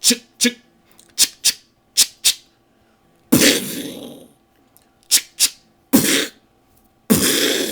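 Mouth-made gunshot sound effects by a beatboxer. Sharp "chk" clicks from the back of the throat, mostly in pairs, alternate with two louder gunshot imitations, about three seconds in and near the end. Each gunshot is a plosive P burst with a forced rush of air from the throat, trailing off over about a second.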